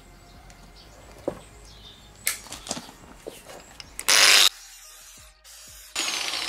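Small brass clutch friction pieces being handled in locking pliers, with a few light metal clicks. About four seconds in, an angle grinder cuts into the brass in one short, loud burst. Near the end a steady whirring with a high whine starts.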